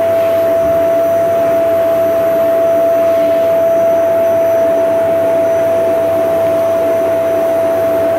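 Vacuum cleaner running steadily, its motor giving a high, constant whine over a rushing hiss of air.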